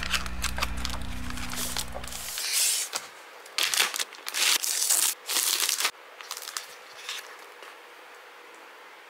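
Clear plastic zip-lock bag crinkling in a string of loud bursts as it is handled and pulled open, followed by a few softer rustles. A low steady hum underneath stops abruptly about two seconds in.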